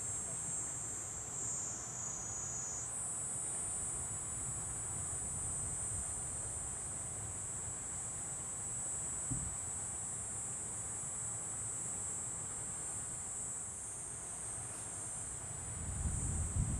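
Steady high-pitched insect chorus, with a second, lower insect voice that stops about three seconds in. A low rumble swells near the end.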